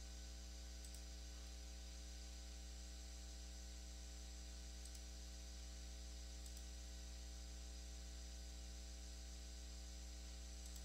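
Steady low electrical mains hum with a ladder of overtones over faint hiss, the background noise of the recording chain. A few faint clicks are heard in the second half.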